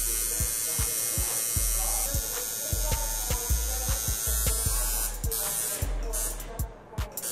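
Electric tattoo machine buzzing as it inks a forearm, under background music with a steady beat.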